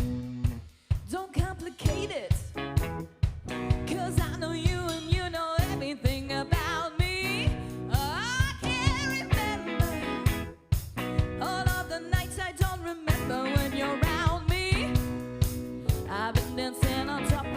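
Live funk and soul band playing a groove, with drums and bass under a lead line that bends and slides in pitch.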